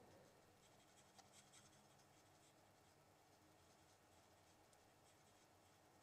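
Near silence with the very faint scratch of a Stampin' Blends alcohol marker's nib rubbing over cardstock as colours are blended, with a few small ticks about a second in.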